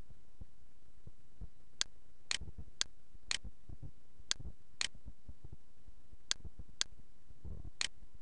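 Computer mouse button clicking: about nine sharp clicks, mostly in pairs about half a second apart, over a steady hiss with faint low thumps.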